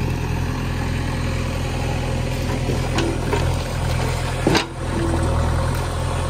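Diesel engine of heavy earthmoving machinery running steadily, with two sharp knocks about three and four and a half seconds in.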